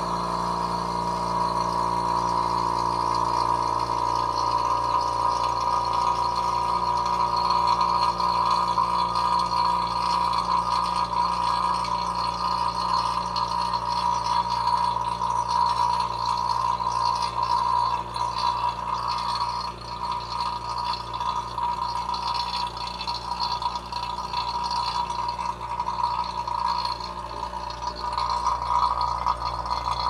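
Elitech SVP-7 two-stage, 7 CFM rotary vane vacuum pump running steadily as it pulls a vacuum on a small chamber.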